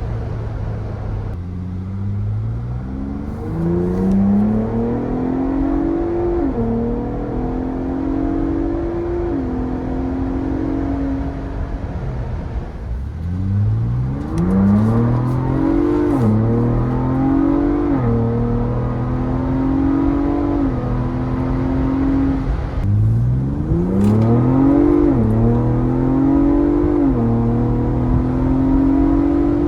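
Ford Bronco Raptor's 3.0 L twin-turbo EcoBoost V6 breathing through an S&B cold air intake, accelerating hard three times. Each time the engine note climbs, drops sharply at the upshifts, and settles into a steady cruise between pulls.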